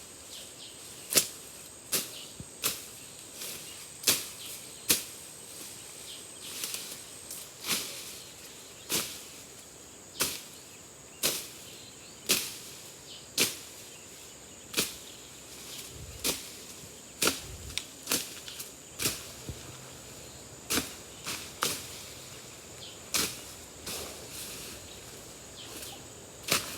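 Repeated sharp chopping strikes, roughly one a second and unevenly spaced, over a steady high-pitched insect drone.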